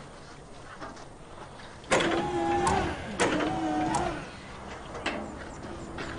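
Tow truck's winch motor being run from the rear controls, whining in two runs of about a second each, starting abruptly about two seconds in, with a few lighter knocks after.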